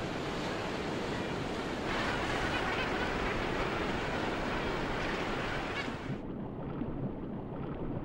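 Surf churning and breaking, a steady wash that grows a little louder about two seconds in. About six seconds in it gives way to a duller, muffled water sound with the high hiss gone, as heard underwater.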